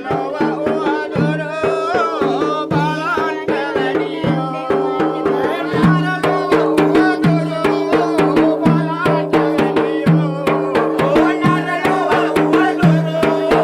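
Traditional folk music: hand drums beating a quick, steady rhythm, with singing over held tones.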